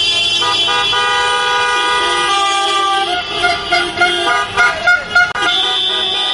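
Many car horns honking at once at several different pitches, in long held blasts that overlap, then shorter separate toots in the second half.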